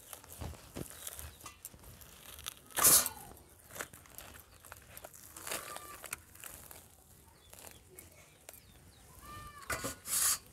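Hands tearing apart a ripe palmyra palm fruit, the stringy pulp and fibrous black husk ripping and rustling in short, scattered bursts, the loudest about three seconds in. Near the end a piece is set down into a steel bowl.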